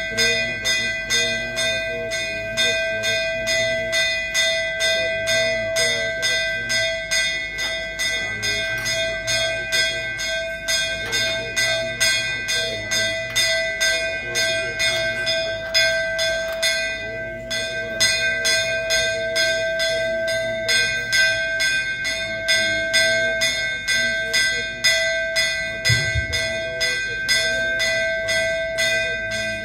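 A bell struck rapidly and continuously, several even strokes a second, its ringing tones sustained throughout, as rung during a Hindu puja.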